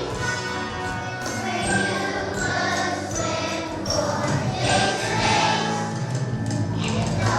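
A children's choir singing a song with musical accompaniment.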